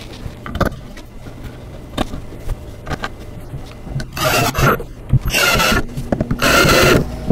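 Cordless drill driving three screws into the wooden arm of a doll chair: three short bursts of the drill, each under a second and about half a second apart, near the end. Before them come light clicks and taps as screws are picked up and set in place.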